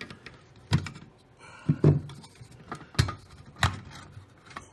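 Sharp metallic clicks and knocks, about five at irregular intervals, as a drilled-out rivet is pushed out with a screwdriver and the old blower motor is worked loose from its sheet-metal fan-kit housing.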